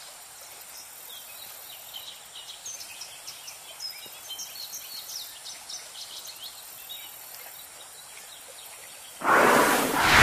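Bird chorus: many small birds chirping over a soft, steady outdoor hiss. About nine seconds in, a sudden loud rushing noise cuts in over everything.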